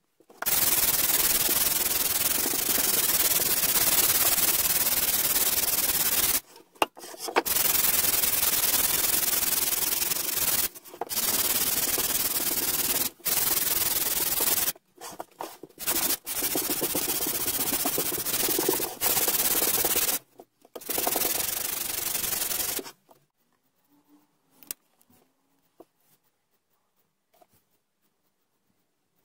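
Sanding gold paint off the face of a wooden decking board with routed lettering: a steady, loud abrasive rasp that comes in stretches of a few seconds, each starting and stopping abruptly. It stops about 23 seconds in, leaving only a few faint ticks.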